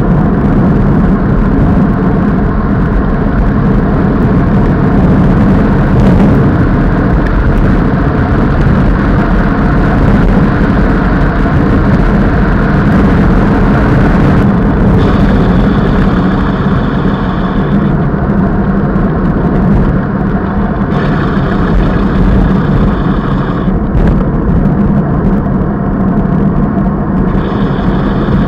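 Wind buffeting the microphone of a camera on a road bike riding at speed: a loud, steady low rumble. A thin higher whir comes and goes three times in the second half.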